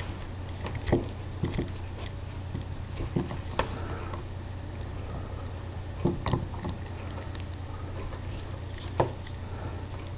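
Several hoses being fitted onto threaded tube fittings and tightened by hand. The sound is irregular small clicks, knocks and handling noises over a steady low hum.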